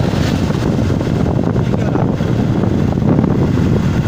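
Wind buffeting the microphone over the steady low rumble of an open vehicle driving on a paved road.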